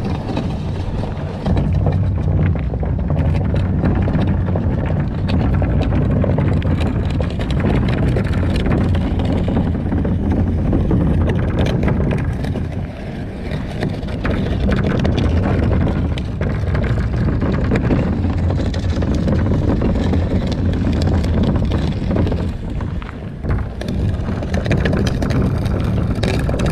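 Plastic kayak being dragged over rock, gravel and concrete: a continuous rough, rumbling scrape with brief lulls twice.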